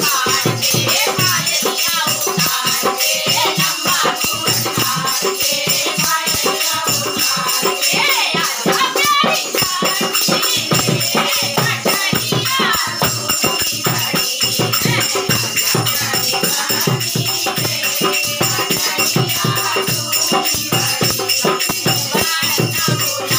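Group of women singing a banna-banni wedding folk song together to a hand-beaten, rope-tensioned dholak drum keeping a steady rhythm.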